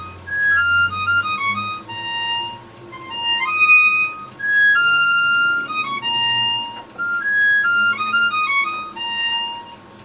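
Harmonica playing a melody of single held notes that step up and down, in phrases with short breaks between them.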